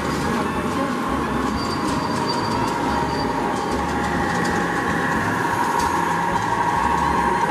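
HO-scale model trains running on a layout: passenger cars rolling by on the track, then a diesel locomotive and its container cars passing. Throughout there is a steady whine with faint ticking, and a higher whine grows about four seconds in as the locomotive comes by.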